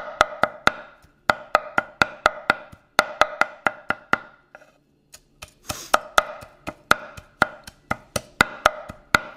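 Steel cleaver chopping cooked steak on a wooden cutting board in quick, even strokes, about four a second, each knock ringing briefly off the board. The chopping pauses twice, briefly.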